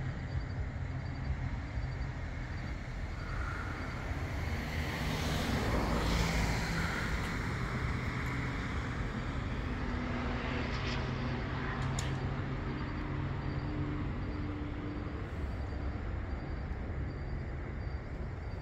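Outdoor street ambience: a steady low rumble of road traffic, with a vehicle passing that swells and fades around six seconds in.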